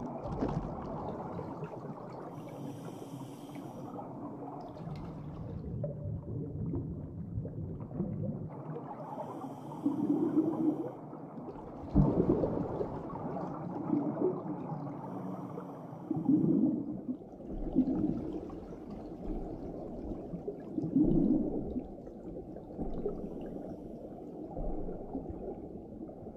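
Muffled underwater sound effect: a steady low watery rumble with gurgling, and soft breath-like swells every couple of seconds, as of a diver breathing through a helmet. There is one sharp click about twelve seconds in.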